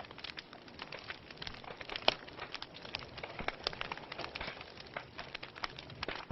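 Wood fire burning in a fireplace, crackling with many small irregular pops and one sharper pop about two seconds in.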